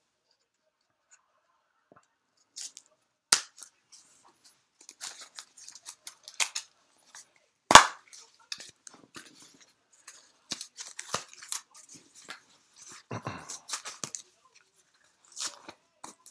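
Paper wrapping being cut and torn open by hand, with scissor snips, crinkling and tearing. Scattered sharp clicks run through it, the loudest about three and eight seconds in.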